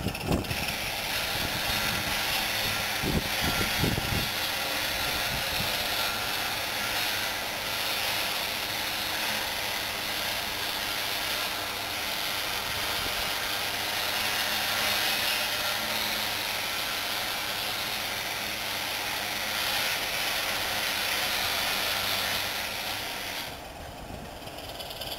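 Diesel locomotive running in a shed yard: a steady rushing engine noise over a low hum, with a few low thumps in the first few seconds. The noise eases near the end.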